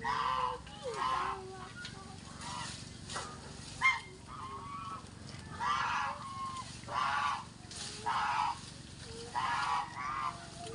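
Goose honking: a series of short calls, roughly one a second, with a pause midway, and a single sharp click about four seconds in.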